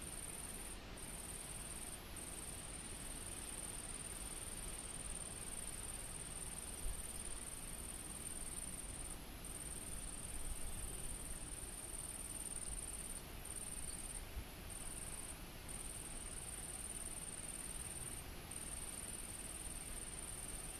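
A high-pitched insect call, steady and continuous, broken by short gaps every second or two, over a faint low rumble.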